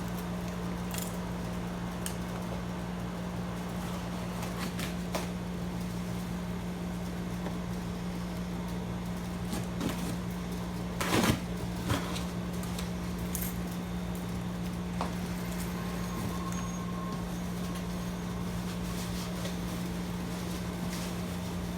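A steady low hum runs throughout, over scattered clicks and rustles of a shipping box and its packaging being opened and handled, with a louder rustle about eleven seconds in.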